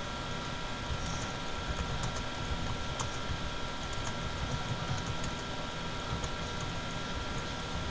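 Typing on a computer keyboard: irregular keystroke clicks over a steady background hiss with a faint steady whine.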